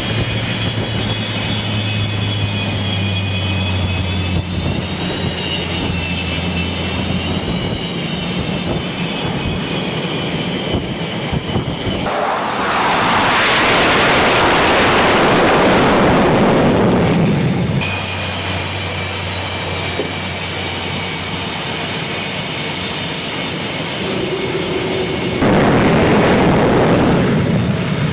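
Jet aircraft engines: a steady high whine over a low hum, broken by a loud rushing roar of jet noise lasting several seconds in the middle and cutting in again suddenly near the end.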